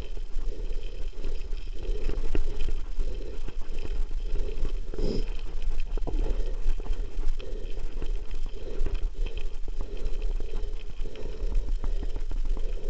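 Mountain bike riding over loose gravel: tyres crunching and the bike rattling, with a low wind rumble on the microphone and a rhythmic pulsing about every two-thirds of a second.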